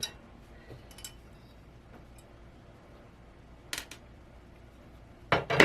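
Hard parts of a monitor being handled: a few faint clicks, a sharper double click a little past halfway, and a louder clatter of parts knocking together near the end.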